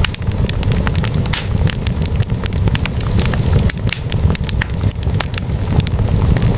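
Wood fire burning in a fireplace, with dense, irregular crackles and pops from the burning logs over a steady low rumble of the flames.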